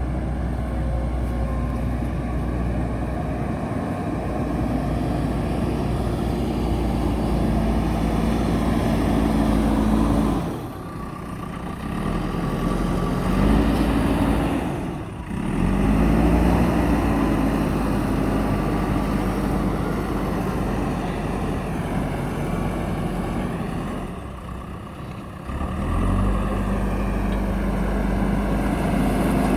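Diesel engine of a JCB backhoe loader running under working load. Its note sags and then climbs back several times as the machine works.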